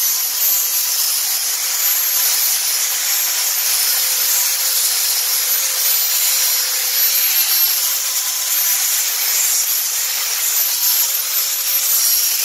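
Angle grinder fitted with a narrow belt-sander arm running steadily, its abrasive belt sanding along a carved wooden log: a continuous motor whine under the rasping hiss of the belt on the wood.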